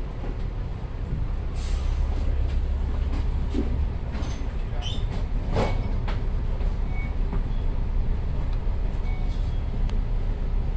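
Double-decker bus engine idling with the bus stationary, a steady low rumble heard from inside the upper deck, with a few short clicks and knocks from the bus.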